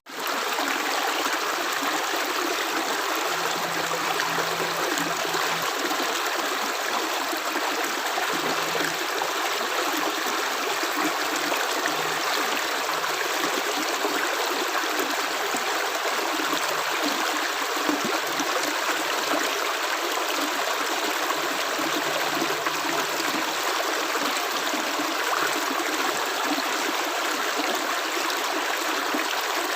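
Steady rush of running water, an even continuous sound without separate, distinct drops.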